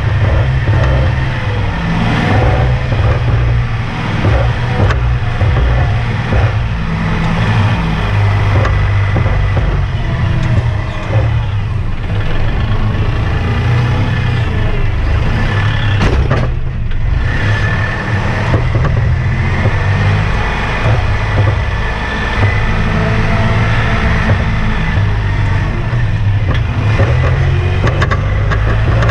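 Kubota compact tractor's diesel engine running steadily, heard up close from the operator's seat as the tractor drives, with occasional knocks and rattles.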